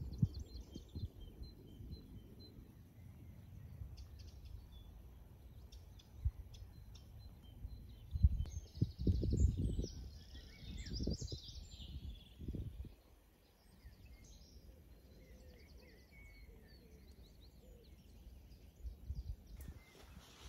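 Small birds chirping and singing over a faint, steady outdoor background. There are a few louder low rumbles about eight to twelve seconds in.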